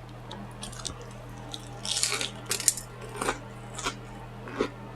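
Close-up eating sounds: several short, crisp crunches and mouth noises of someone chewing food, spaced about half a second to a second apart, over a steady low electrical hum.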